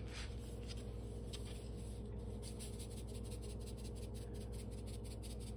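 Salt being shaken from a canister's pour spout onto food in a glass bowl: a quick run of faint, even ticks, several a second.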